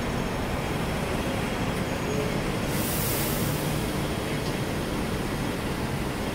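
Steady road-traffic rumble as a double-decker bus drives in close alongside, with a brief hiss about three seconds in.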